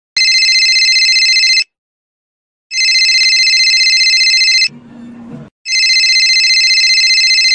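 Mobile phone ringing with a classic trilling telephone-bell ringtone: three rings of about one and a half to two seconds each, with short pauses between.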